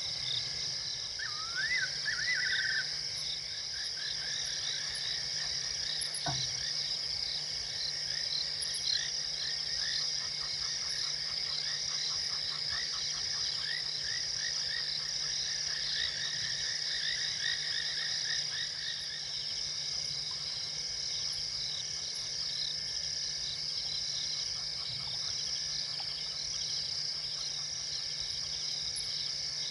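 Night chorus of crickets and frogs: a steady high insect trill under a run of repeated chirping calls that dies away about two-thirds of the way through. There is a single click about six seconds in.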